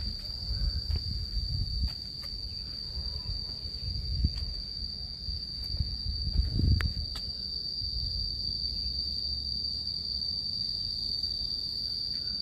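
Insects droning in one steady high tone over a low, uneven rumble, with a few soft knocks; the loudest knocks come about four and seven seconds in.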